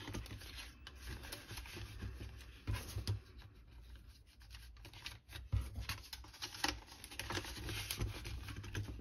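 Paper banknotes and clear plastic binder envelopes being handled: soft rustling and sliding, with scattered light taps and clicks, a few of them sharper.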